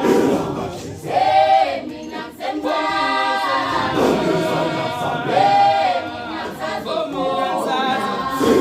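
A group of voices singing together a cappella in held, repeating phrases.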